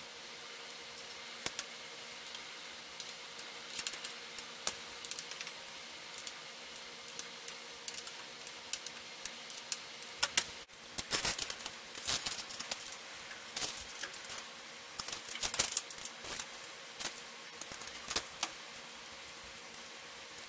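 Irregular small metallic clicks and taps of a hand tool and drivetrain parts as the front and rear derailleurs of a Trek Antelope 830 mountain bike are adjusted, denser in the second half, over a steady faint hum.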